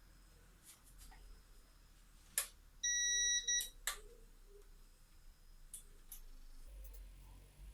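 A few sharp clicks, then a single short high-pitched beep about three seconds in and another click. This is the motherboard's POST beep as the newly assembled PC powers on; one short beep is the usual sign that the self-test passed.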